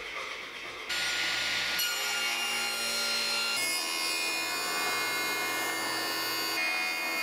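Jointer running, with a board fed across its spinning cutterhead from about a second in: a loud, steady machine whine over the rasp of the knives planing the wood.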